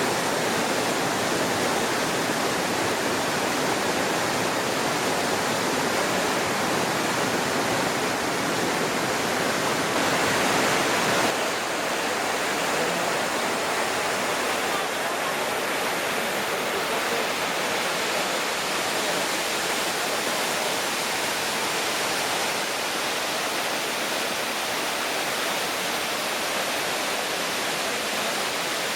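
Jungle waterfall cascade, water rushing steadily, a little softer from about eleven seconds in.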